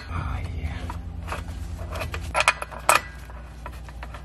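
A few separate sharp metallic clinks as E14 bolts are fitted by hand into a driveshaft flex disc (guibo) and flange, heard over a steady low hum.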